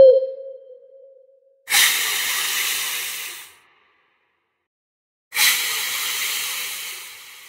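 Two long hisses, each starting suddenly and slowly dying away, with silence between them. Before them, a warbling whistle-like tone fades out.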